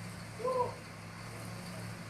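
Steady low hum of the drilling rig's engine running, with a single brief high-pitched chirp about half a second in.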